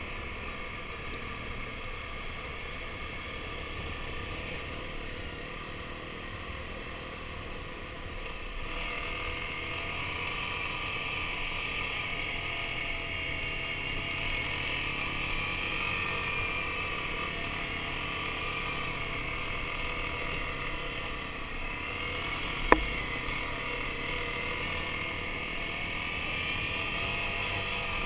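Motorcycle engine running as it rides a gravel forest track, its revs wandering up and down, stepping up a little about nine seconds in. A single sharp knock sounds about two-thirds of the way through.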